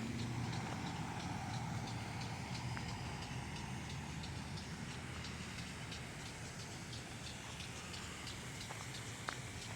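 Outdoor ambience: a steady low rumble with a rapid, even high-pitched ticking, several ticks a second.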